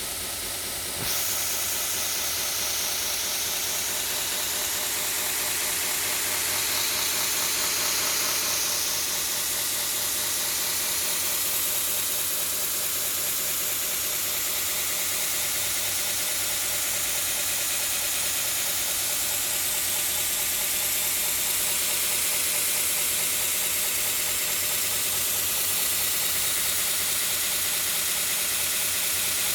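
Home-built 96 x 2 inch belt grinder, its 1 hp three-phase motor run from a VFD, running steadily with a broad hiss of the belt; it gets louder about a second in, then holds steady.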